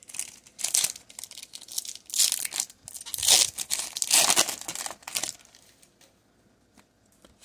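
Foil Pokémon TCG Chilling Reign booster pack wrapper being torn open and crinkled by hand, in several crackly bursts.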